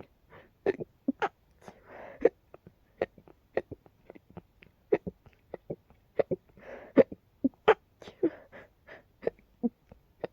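A person's rapid run of short, sharp involuntary hiccups and stifled sneezes, about two catches a second, with a few breathy gasps between.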